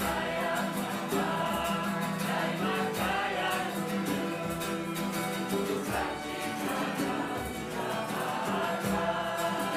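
A group of people singing together.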